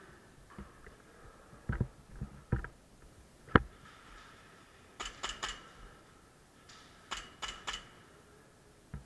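Scattered sharp clicks and knocks: a few single knocks, a loud one near the middle, then two quick runs of three clicks each in the second half.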